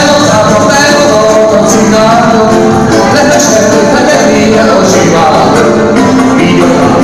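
Live band playing a Hungarian song, loud, with a voice singing over the instruments.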